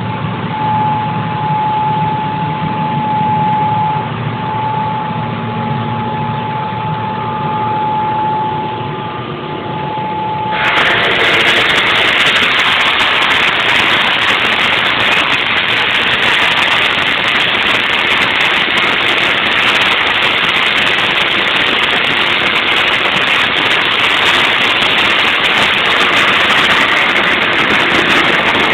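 Twin MTU marine diesel engines running in a yacht's engine room. For about the first ten seconds it is a lower hum with a steady high tone over it. Then it suddenly becomes a much louder, even rush of engine noise that holds steady.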